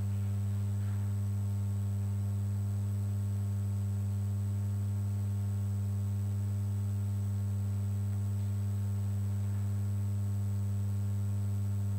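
Steady low electrical hum with a weaker overtone above it and a thin, faint high whine, unchanging in pitch and level.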